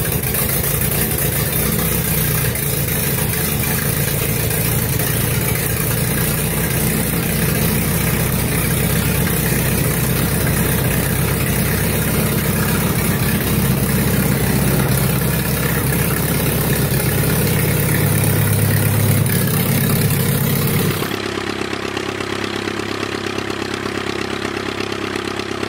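Inverted piston aero engine running steadily on a test stand, a deep even note with a loud hiss over it. About 21 s in it switches abruptly to a smaller aircraft engine idling, a lighter and quieter even note.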